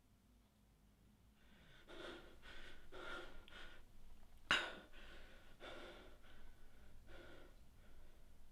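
A man breathing heavily in short, ragged breaths, about two a second, with one sharp, louder gasp about four and a half seconds in.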